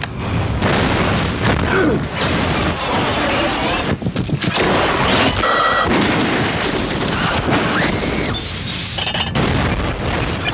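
Loud action soundtrack: dense gunfire and booming explosions, with music and voices underneath.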